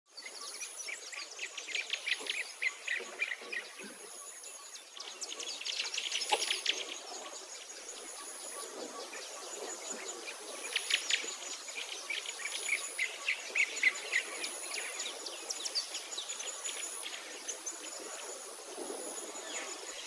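Backyard songbirds chirping and calling in quick runs of short notes, heard through a bird-feeder camera's microphone. A faint, very high thin tone comes and goes behind them.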